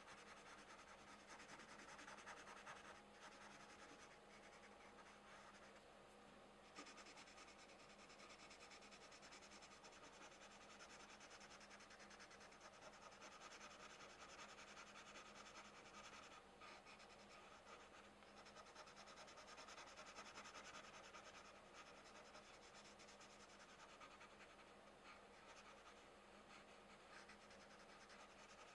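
Colored pencil faintly scratching across coloring-book paper in continuous shading strokes.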